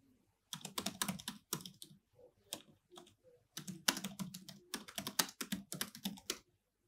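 Typing on a computer keyboard: a quick run of key clicks starting about half a second in, a short pause near the middle, then a second run that stops just before the end.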